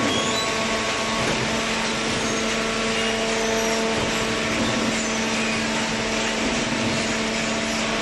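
Horizontal hydraulic cardboard baler and its feed conveyor running: a steady machine hum with a constant whir over it, unchanging throughout.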